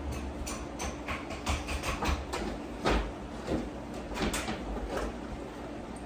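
Irregular knocks and clicks, a few sharper than the rest, over a steady low hum.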